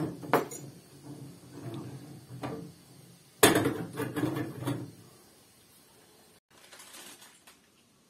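Small glass tea glasses and a teaspoon clinking and knocking on a wooden table: a few sharp clinks, the loudest about three and a half seconds in.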